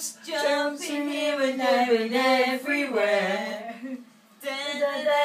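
A voice singing a tune with no accompaniment, holding long notes that slide between pitches, with a brief break about four seconds in.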